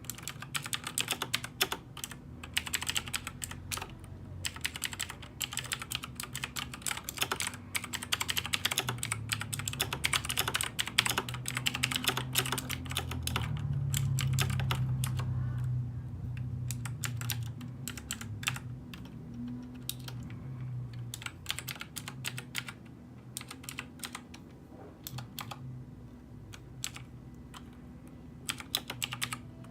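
Typing on a computer keyboard: fast, irregular keystrokes in runs, thinning out to sparser presses in the last third. A low hum runs underneath and grows louder about halfway through.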